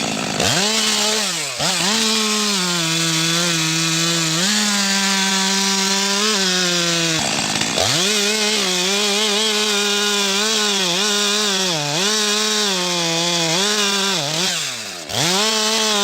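Gasoline chainsaw engine running at high revs while cutting wood. Its pitch sags and climbs back several times, dropping steeply about a second and a half in and again around the middle.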